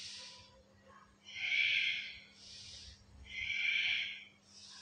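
A woman breathing deeply in and out, paced to a shoulder-rolling exercise: about two full breaths, each a soft hissing inhale followed by a louder, longer exhale.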